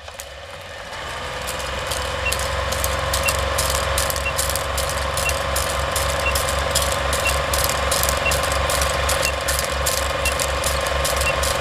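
Vintage film-countdown sound effect: a movie projector running with a fast, even clatter that builds up over the first couple of seconds, with a short high beep once a second from about two seconds in.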